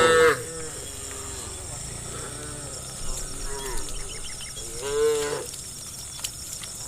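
Cattle mooing: a loud moo ends just after the start and another comes about five seconds in, with fainter, shorter lowing between.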